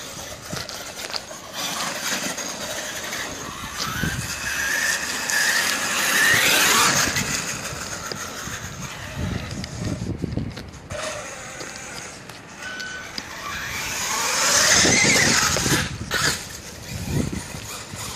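Traxxas E-Revo Brushless Edition RC monster truck's brushless electric motor and drivetrain whining. The whine rises in pitch as the truck accelerates, in two loud spells, one in the first half and one near the end, over a rushing noise.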